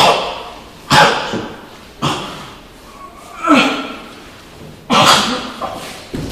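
A person's voice in loud, sudden sneeze-like bursts, about one a second, each dying away quickly.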